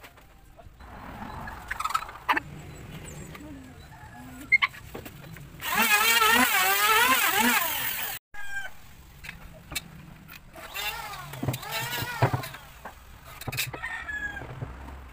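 A rooster crowing: one long, loud, wavering crow about six seconds in, then more crowing calls about eleven to thirteen seconds in. A few sharp knocks come earlier.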